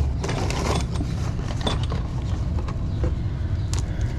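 A few short clicks and rattles of small metal bike parts, the front axle and its end cap, being handled, over a steady low rumble.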